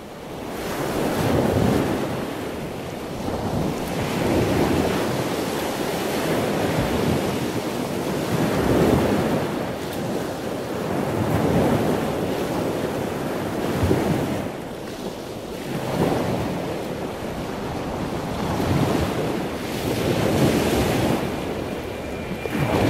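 Ocean surf: waves washing in and ebbing in slow swells, one about every two and a half seconds.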